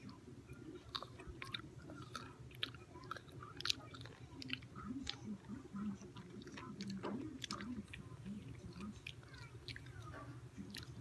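Close-miked chewing of a spicy pickle: irregular mouth clicks and crunches, bite after bite.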